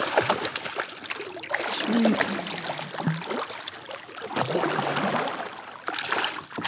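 Hooked smallmouth bass thrashing and splashing at the lake surface beside a kayak as it is reeled in, in a rapid run of irregular splashes.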